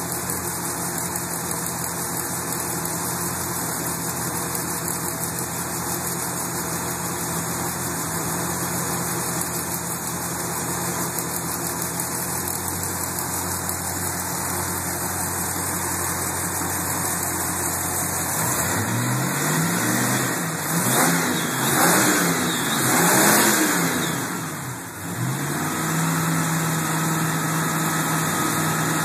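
V8 car engine idling steadily, then revved several times in quick succession, each rev rising and falling, before settling back to a steady idle.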